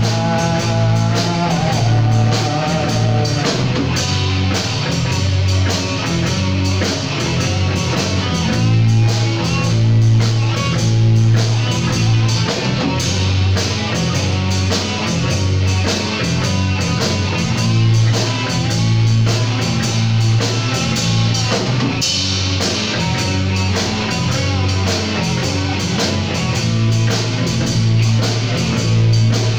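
Post-punk band playing live: two electric guitars, bass guitar and a Pearl drum kit with steady cymbals, and a heavy bass line.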